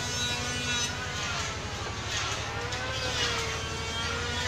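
A motor running steadily: a low, even hum with a faint higher whine that wavers slowly in pitch.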